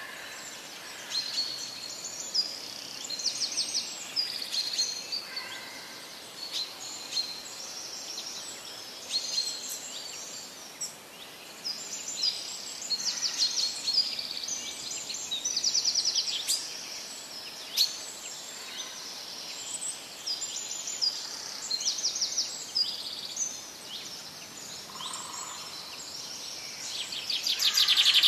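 Small birds chirping and trilling, many short calls overlapping with quick rattling trills, loudest near the end.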